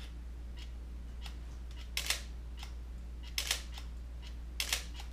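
Sony A850 DSLR shutter firing three times, a little over a second apart, each release a quick double clack of the mirror and shutter, with a few faint clicks before the first. It is the camera's mirror, just super-glued back in, working again.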